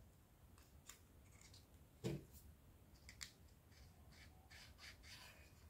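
Near silence with faint scattered clicks from craft materials being handled, and one brief soft low sound about two seconds in.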